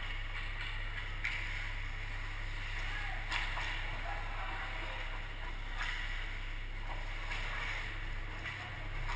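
Ice hockey skates scraping and carving on the ice during a scramble in front of the net, with sharp stick and puck knocks, the loudest about three seconds in. A steady low hum runs underneath.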